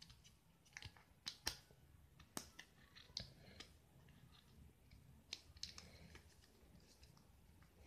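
Faint, irregular clicks and taps from a phone being handled in a matte silicone bumper case, a Lenovo Vibe Shot's. The sharpest clicks come about a second and a half and two and a half seconds in.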